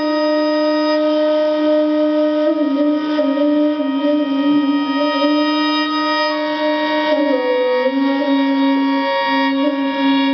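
Flute music: long held notes with many overtones, shifting pitch only a few times.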